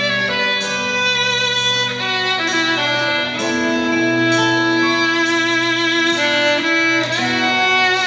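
Violin solo played live through the PA: a slow melody of long held notes, one after another, with a low held note sounding underneath.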